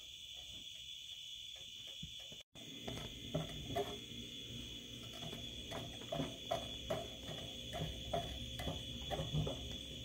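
Wooden spoon scraping and knocking against a cast iron skillet as charring egg yolks are stirred, in many short strokes, over a steady high chirring of crickets. The sound cuts out briefly about two and a half seconds in.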